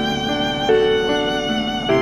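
Instrumental music: a slow, sustained melody over held chords, with each note held about a second before the next.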